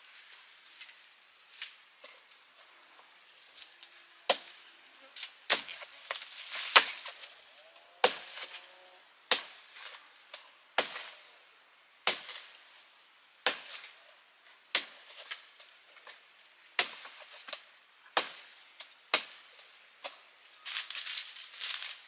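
Chopping with a blade, as when cutting into a palm stem to get at the bud. Sharp single blows land about every second and a half, and a burst of crackling rustle comes near the end.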